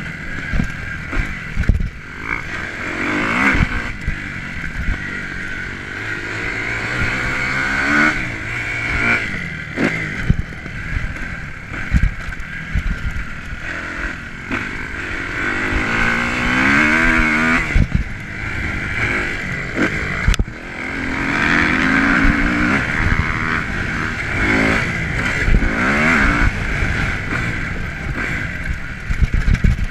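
2009 Kawasaki KX250F's four-stroke single-cylinder engine under hard riding, its pitch repeatedly rising and falling as the throttle is worked. Sharp knocks from bumps and landings come through several times.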